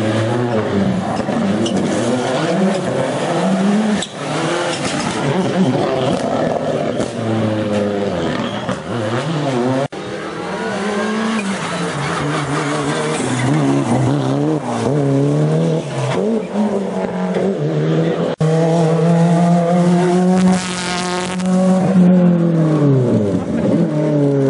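Rally car engines revving hard through the gears, pitch climbing and dropping with each shift and lift, with tyre squeal on the corners. Changes abruptly about 4, 10 and 18 seconds in, as a new run begins.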